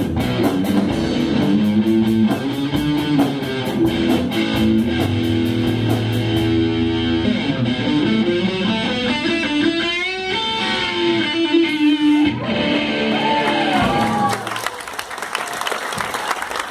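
A live rock band plays guitars and drums as the song draws to a close. About fourteen seconds in the music stops and the audience starts applauding.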